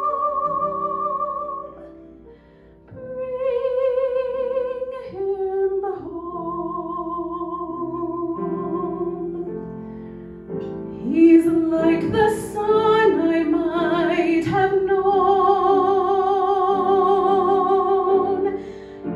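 A woman singing a slow, operatic-style ballad solo into a hand-held microphone, with wide vibrato on long held notes, over a soft instrumental accompaniment. There is a short break about two seconds in, and the voice climbs higher and louder in the second half.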